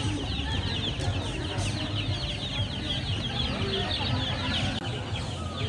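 A group of chicks cheeping continuously: many quick, high, falling peeps overlapping one another, over a steady low background rumble.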